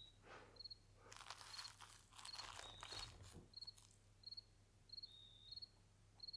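Faint cricket-like insect chirping in short, evenly repeating pulses, over a low steady hum. A soft rustling, scraping noise comes in about a second in and lasts a couple of seconds.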